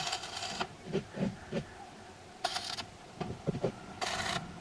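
Arc of a stick (shielded metal arc) welder laying short tack welds on square steel tubing, heard as three brief bursts of crackling and hissing about two seconds apart. A few soft, dull knocks fall between the bursts.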